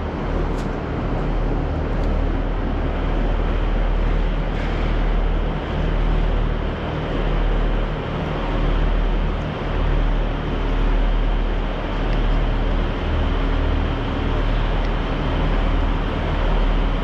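Train running at speed, heard from on board: a steady rumble with a low hum that swells and dips about once a second.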